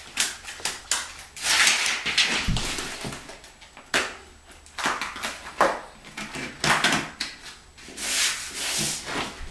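Adhesive edge strip being handled and pressed along the base of a wall by hand: irregular rubbing and scraping with a few sharp clicks.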